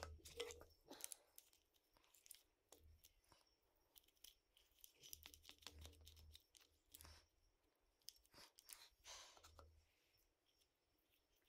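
Faint sticky squelches and small clicks of fingers packing thick wheel bearing grease into an open mower gearbox around its gears and thrust bearings.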